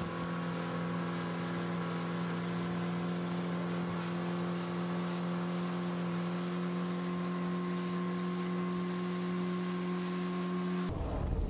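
MacGregor 26M's outboard motor running at a steady speed, its pitch holding even throughout. Near the end it cuts off abruptly and a low wind rumble takes over.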